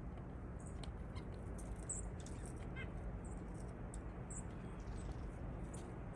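Small birds chirping: many short, high chirps, overlapping and irregular, with a quick run of lower notes about three seconds in, over a steady low background rumble.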